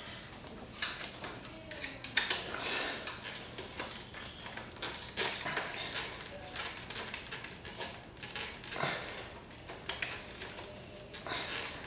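Irregular light metallic clicks, taps and rustling as motorcycle parts and hand tools are handled during assembly, with a few sharper knocks along the way.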